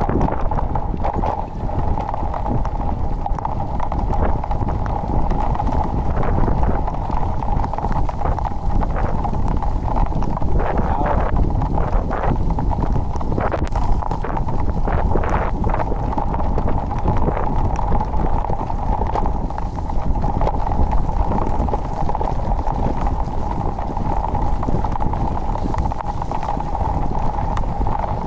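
Ride noise from a small electric vehicle on wet streets: wheels rumbling and rattling over cobblestones, with a steady high hum throughout.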